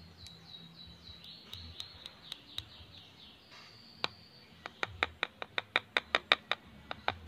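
A small bird chirping in quick, repeated short falling notes, then a run of sharp clicks at about four a second in the second half, louder than the chirps.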